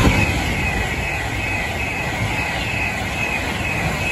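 Avanti West Coast Class 390 Pendolino electric train passing at speed close by: a steady rush of wheels on rail and air, with a high steady whine over it. It is loudest at the very start, as the front of the train goes past.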